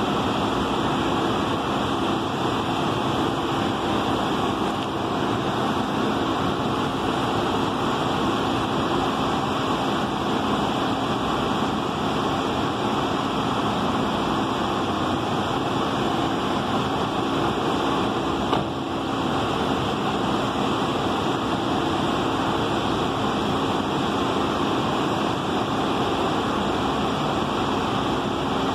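Steady vehicle noise with a constant low hum: a small transit shuttle bus standing with its engine idling.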